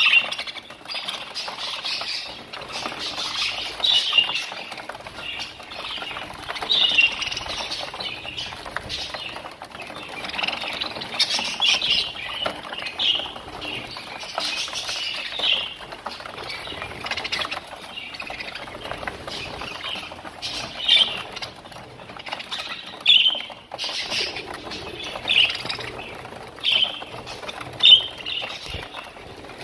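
A flock of budgerigars chirping and chattering in short, overlapping calls, with wings flapping as birds flutter between the feed dishes.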